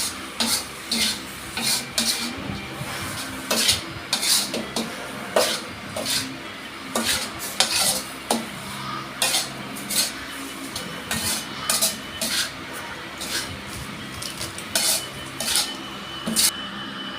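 Metal spatula clanking and scraping against a frying pan while noodles are stir-fried, about one or two sharp strikes a second, over a faint sizzle.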